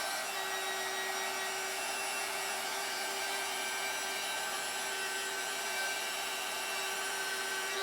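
Steady whir of a small electric blower motor running at constant speed, with a faint steady hum under it.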